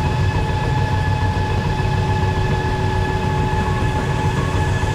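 Granular fertilizer pouring from an overhead loading spout into a truck bed, over the steady rumble and whine of the loading machinery. The sound is loud and unchanging, with a few steady whining tones above a low rumble.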